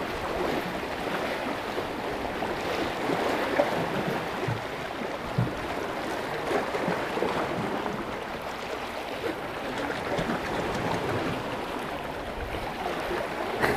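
Small sea waves washing and splashing against shoreline boulders, a steady hiss of moving water.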